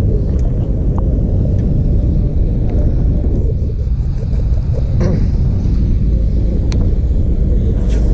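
Wind buffeting the microphone: a loud, steady low rumble, with a few light clicks over it.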